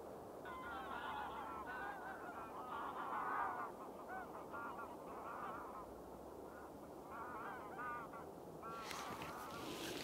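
Geese honking, many overlapping calls in two bouts, over a steady low background hiss. A rustling noise starts near the end.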